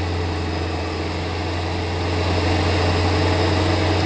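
A 2007 Toyota Yaris running in fifth gear at about 60 mph with its front wheels spinning in the air: a steady low hum that grows slightly louder about two seconds in. The owner puts the humming down to a worn front wheel bearing on the passenger side.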